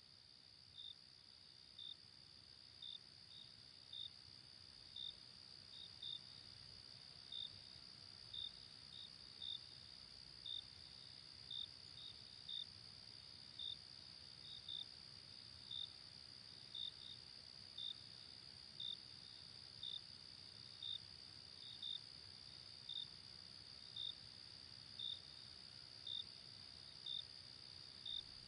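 Crickets chirping at night, faint: a steady high trill with short chirps about once a second.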